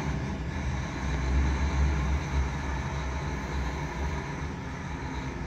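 Steady low rumble of an idling engine, with the energy concentrated in the lowest notes.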